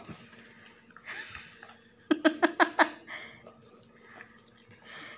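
Labradors sniffing and chewing at a plate of snacks, with soft breathy puffs around a second in and near the end. A few quiet syllables of voice come briefly about two seconds in.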